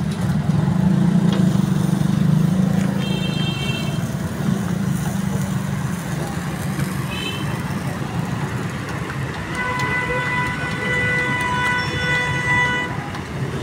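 Steady street traffic rumble with vehicle horns: a short high honk about three seconds in, a brief one about seven seconds in, and a long horn held for about three seconds near the end.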